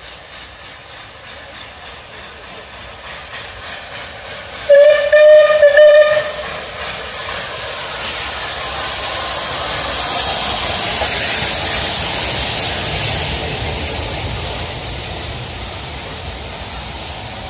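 A loud pitched whistle sounds in about three short blasts, then a long rushing hiss builds up and slowly fades.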